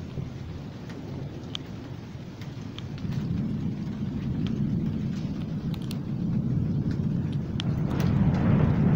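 Thunder rumbling low and growing steadily louder through the second half, with scattered raindrop ticks over it.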